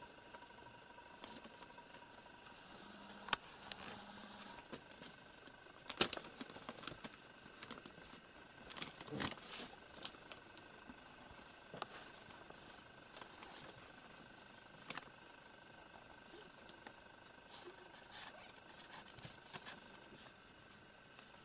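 A kitten and a cat play-fighting on spread newspaper: quiet, irregular rustles and scuffs of paws and bodies on the paper, with a few sharper taps, the sharpest about three and six seconds in.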